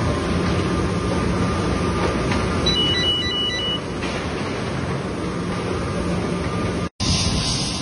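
Steady running noise of a burger-patty production line, its plastic modular conveyor belts and machinery making a continuous mechanical rumble with a low hum. A short run of quick electronic beeps sounds about three seconds in. Near the end the sound cuts off abruptly and gives way to a brighter hiss.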